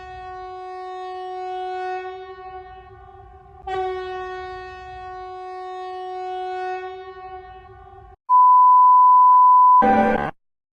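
Emergency alert broadcast tones: a steady, horn-like alarm tone sounds twice, each about four seconds long, then a single pure, high beep of about a second and a half, the loudest part, and a short burst of noise near the end.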